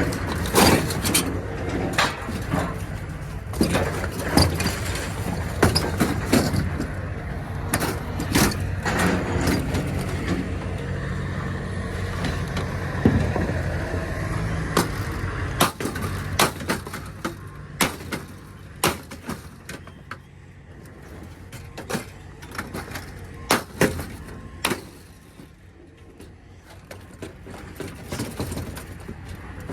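Irregular sharp metal knocks and clanks from hand tools working on an air-conditioner coil unit's casing, prying and striking at riveted panels. A low vehicle-engine rumble underneath drops away after about twenty seconds.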